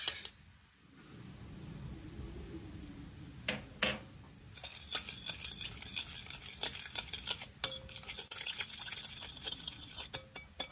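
Metal spoon stirring a wet chili-flake dressing in a glass bowl, scraping and clinking against the glass with many small clicks. Before the stirring starts there is a soft low rush, then two sharp ringing clinks just before four seconds in.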